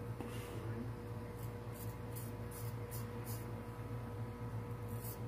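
Straight razor scraping lathered stubble on the neck in short strokes, about six crisp scrapes in quick succession around the middle. A steady low hum runs underneath.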